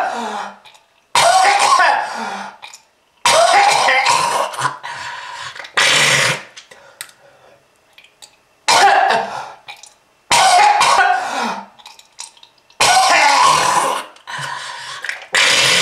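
A person coughing hard in repeated fits, about seven bursts a couple of seconds apart, each starting suddenly and trailing off in a rasping, voiced tail: a smoker's cough.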